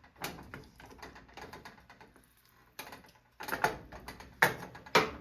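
Wooden spoon stirring mushrooms in a frying pan: irregular clicks and knocks of the spoon against the pan, coming in clusters, loudest in the second half.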